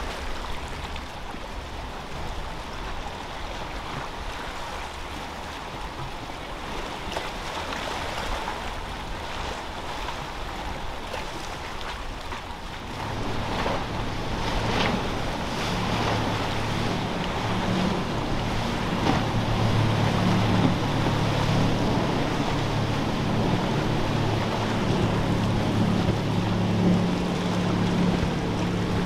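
Waves and wind noise at an inlet, then about halfway through the steady low drone of a motorboat's engines comes in, grows louder and holds.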